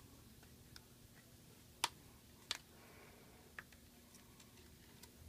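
A few sharp, short clicks, roughly a second apart, over a faint steady hum: small hand tools tapping and prying at the iPad 2's glass during disassembly.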